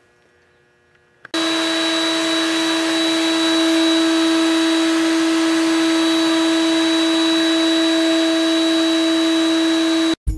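Router-table router running steadily with a high whine while a thin wooden rail is fed past a round-over bit. It starts suddenly about a second in and stops abruptly near the end.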